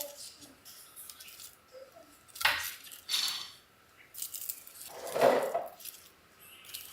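Dishes and tableware clinking and knocking: several separate short clinks, the loudest about halfway through and again near the end.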